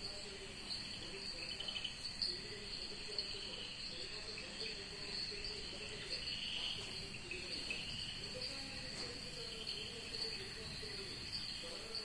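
Insect chorus of crickets making a steady high-pitched chirring, with fainter wavering lower calls underneath.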